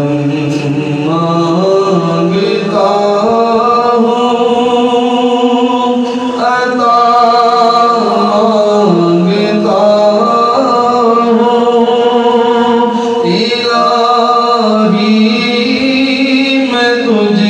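A man singing a devotional chant into a microphone, in long held notes that slide between pitches, with short breaths about six and thirteen seconds in.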